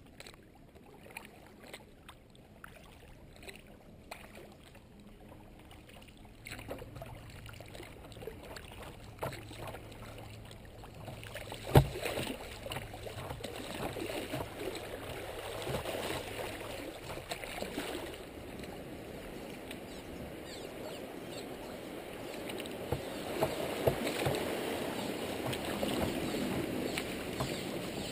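Fast creek water splashing and rushing around a kayak hull as it runs choppy riffles, growing louder through the middle and late part. One sharp knock sounds about halfway through.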